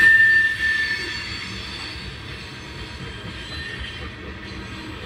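Freight train rolling past with a steady high wheel squeal that fades out about a second in, leaving a quieter rumble of the cars on the rails.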